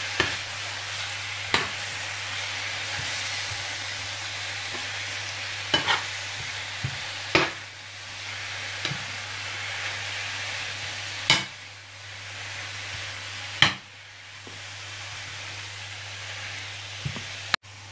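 Courgette slices frying in olive oil over medium-high heat, a steady sizzle as the courgettes give up their water, while a spoon stirs them and knocks against the pan every few seconds.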